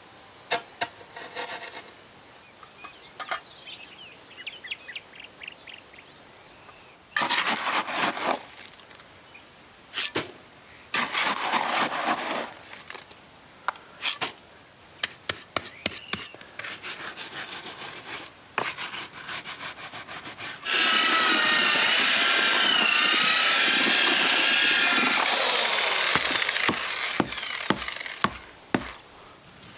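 Short bursts of noise and knocks from work on a post in concrete, then, about two-thirds of the way in, an electric drill with a paddle mixer runs for about five seconds, its pitch wavering as it churns concrete in a bucket.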